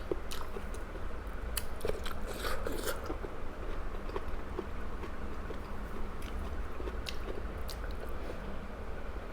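A person chewing and biting food close to the microphone, with scattered short mouth clicks that come thickest in the first three seconds, over a steady low hum.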